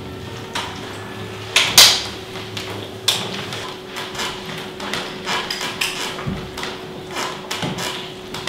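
Hands kneading and pressing into a heap of flour on a table, making irregular soft knocks and scrapes, two or three a second, with a louder knock about two seconds in. A faint steady hum runs underneath.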